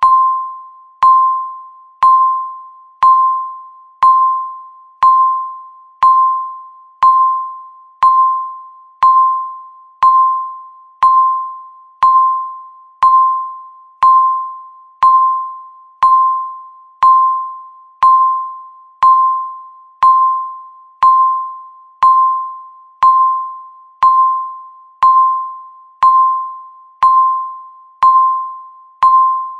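Electronic countdown-timer beep sounding once every second, steady and even: a single mid-pitched tone that strikes sharply and fades away before the next.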